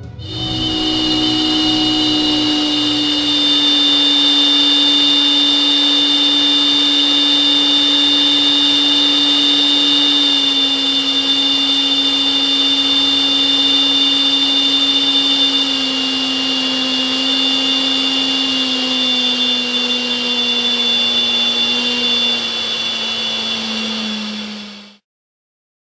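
70 mm electric ducted fan of a Freewing F-16 model jet running at steady throttle, with a Nerf whistle fitted in its duct. It makes a loud rushing whine with two high steady whistling tones and a lower tone that slowly sinks in pitch. It cuts off suddenly near the end.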